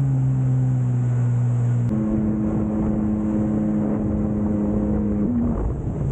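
Jet ski engine running at speed, a steady pitched drone that jumps higher about two seconds in, then dips and starts to climb again near the end.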